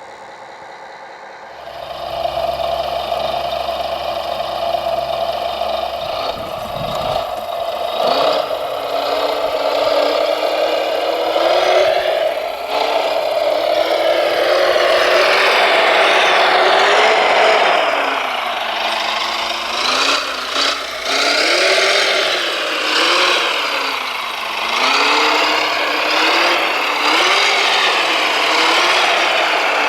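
Whine of a remote-control construction machine's electric motors, starting about two seconds in and steady at first, then rising and falling in pitch again and again as the machine works, over a rough grinding noise.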